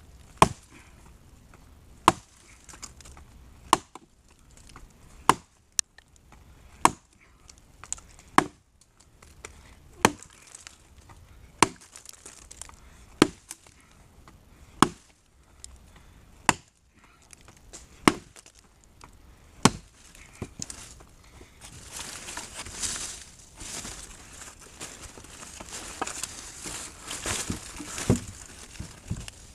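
Gransfors Bruks Small Forest Axe chopping into a log, about thirteen sharp strikes at an even pace of roughly one every second and a half. The strikes stop about twenty seconds in, followed by a noisier stretch of rustling and a few knocks.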